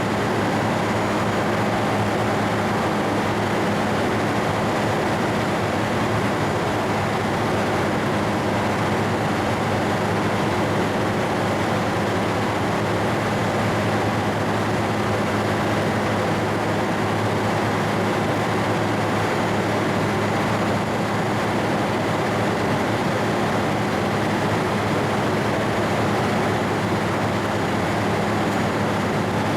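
Steady engine drone: a constant low hum over even noise.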